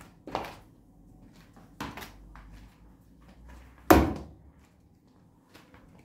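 A few separate knocks and thuds on a tiled floor with quiet between them, the loudest about four seconds in.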